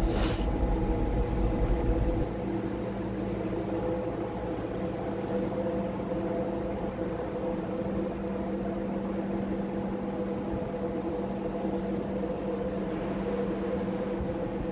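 Steady machinery hum of a ship's engine room: several steady tones over a rumble, with a brief sharp knock at the very start. The deep part of the rumble drops away about two seconds in.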